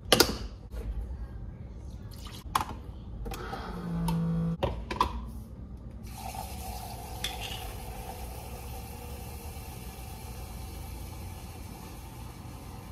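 Clicks and clatter as a single-serve coffee maker is handled and its lid shut, a short hum, then from about six seconds a steady hiss of the machine dispensing hot water into a glass mug.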